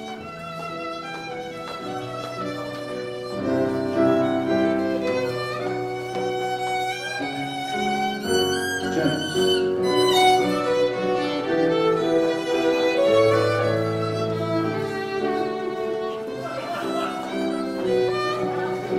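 Fiddle-led English country dance tune with a steady bass line, played for the dancing.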